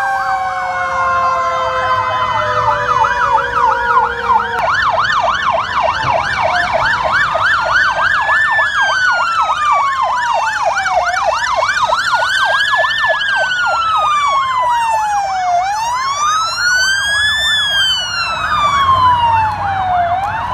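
Several emergency-vehicle sirens from passing Red Cross ambulances and escort vehicles sounding together: a fast yelp and a slow wail that rises and falls about every four and a half seconds. A third siren glides down in pitch and cuts off about four and a half seconds in.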